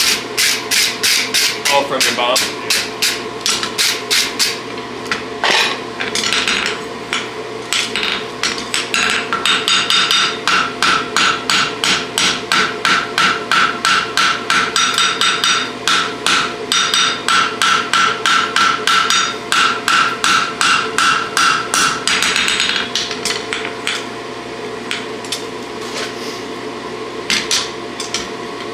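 Hand hammer forging a red-hot draft horseshoe on a steel anvil: a steady run of blows, about two or three a second, with the anvil ringing. The blows thin out to a few lighter strikes in the last few seconds.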